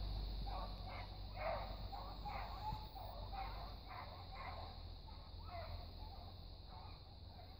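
Beagles barking and yelping far off, a quick run of short, fairly high-pitched calls about one or two a second. A low rumble sits under them.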